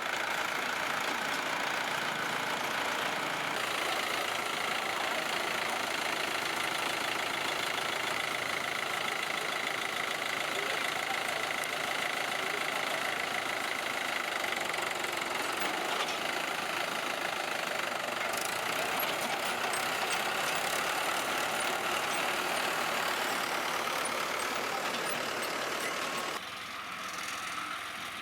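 Swaraj 960 FE tractor engine running steadily, dropping noticeably in level about 26 seconds in.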